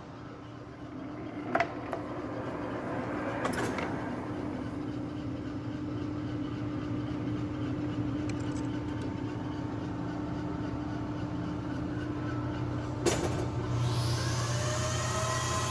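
Turnmaster gap-bed engine lathe running under power, its spindle and gearing giving a steady hum with a few sharp clicks. Near the end the spindle speeds up, and rising whining tones build as it gets louder.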